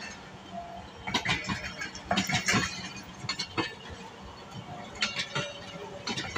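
Railway passenger coaches rolling slowly past, their wheels clacking over the rail joints in pairs every second or so, with sharp metallic clinks.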